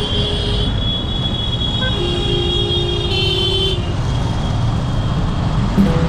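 Busy road traffic heard from a moving motorcycle: a steady low rumble of engine and wind, with vehicle horns honking. A high horn sounds for the first few seconds, and a lower horn joins it from about two seconds in, ending just before four seconds.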